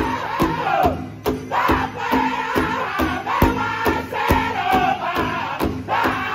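Powwow drum group singing in high-pitched unison over a large hide drum struck together by several drummers in a steady beat, a little over two beats a second. The sung phrases glide downward, with a brief breath in the singing about a second in.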